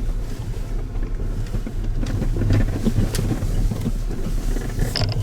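Road noise inside a moving vehicle: a steady low rumble with scattered knocks and rattles.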